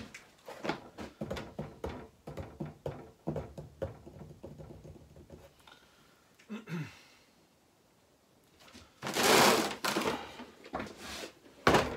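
Workshop clatter: tools and steel parts knocking and clicking as they are handled, then a loud hissing noise for about a second about nine seconds in, and a sharp knock near the end.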